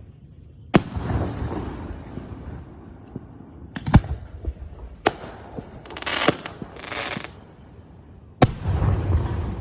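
Five-inch aerial display shells firing: four sharp booms, about a second in, near the middle, just after it and near the end, each followed by a rumbling tail, the loudest near the middle. A hissing stretch comes between the third and fourth booms.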